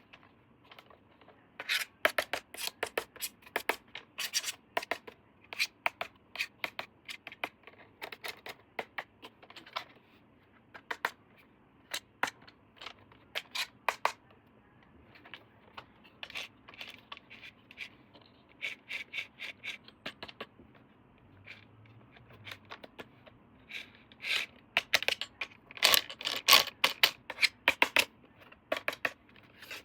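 Hands unpacking toy packaging: irregular rustling, scraping and sharp clicks of plastic and cardboard being handled and opened, busiest near the start and again near the end.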